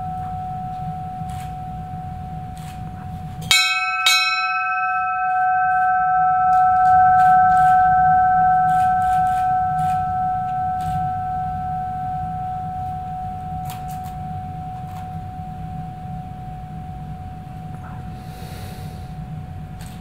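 Brass ship's bell struck twice in quick succession, then ringing on and slowly fading with a wavering tone, tolled to mark the silent prayer for the dead.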